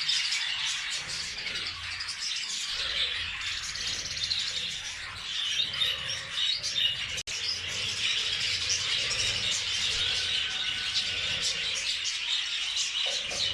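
A flock of budgerigars chattering and chirping all at once, many overlapping calls, with a momentary break about halfway through.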